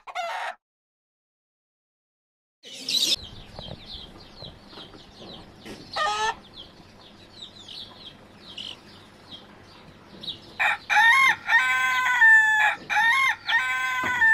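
Chickens, with small high chirps running throughout. One louder call comes about six seconds in, and a rooster crows loudly in drawn-out stretches over the last four seconds. A brief sound at the very start is followed by about two seconds of dead silence.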